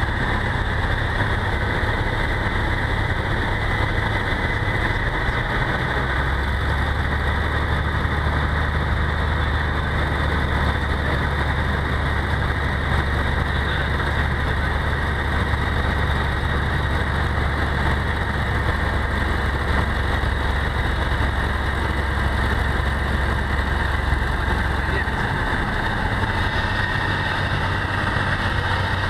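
Cessna 172's piston engine and propeller droning steadily, heard from inside the cockpit on a landing approach. The drone drops in pitch about six seconds in, as power is reduced, and rises slightly again a few seconds before the end.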